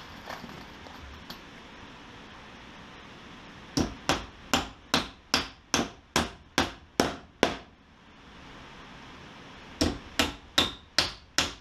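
Claw hammer driving nails into a wooden framing strip: a run of about ten sharp, evenly spaced blows, roughly two and a half a second, then a short pause and a second run of blows near the end.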